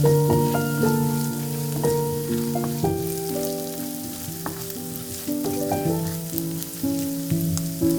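Food sizzling and crackling in a frying pan, under louder background music of sustained notes that change every second or so.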